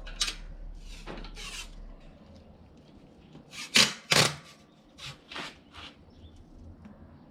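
Adhesive rim tape being pulled off its roll and pressed into a mountain bike rim: about eight short scratchy strokes, the two loudest close together in the middle.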